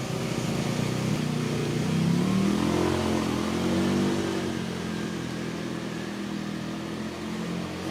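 A motor engine running, its pitch rising and falling between about two and four seconds in.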